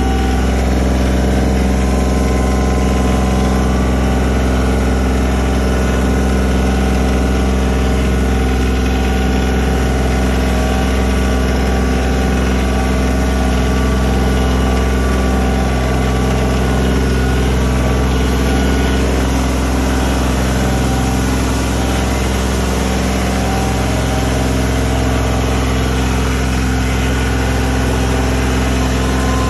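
Kioti compact tractor's diesel engine running at a steady, even speed as the tractor is driven along.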